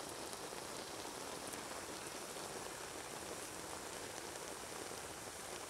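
Fish and sugarcane sizzling in a pot of bubbling sauce: a steady, dense crackle.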